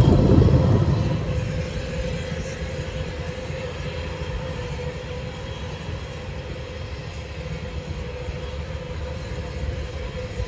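Bulleid West Country class steam locomotive 34092 City of Wells and its tender rolling past close by with a loud low rumble, which drops about a second in. After that the locomotive is heard further off as it pulls away: a steady low rumble with a faint steady tone.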